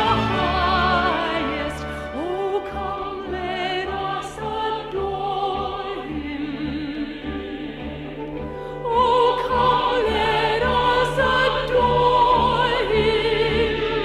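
Operatic singing with strong vibrato over an orchestral accompaniment, from a recording of Christmas music; the music swells louder about nine seconds in.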